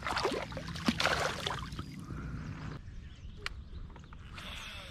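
Water splashing and lapping against a fishing kayak's hull, louder in the first two seconds and then easing off, with a few light knocks of gear on the boat.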